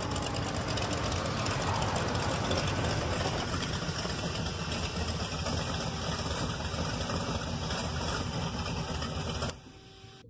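A loud, steady, dense rumbling noise that cuts off abruptly near the end.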